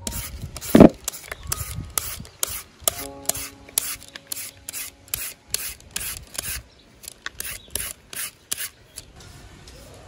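Papaya being shredded with a serrated julienne peeler: quick rasping scrapes of the blade down the firm flesh, about two or three a second, with a heavier knock about a second in. The strokes stop shortly before the end.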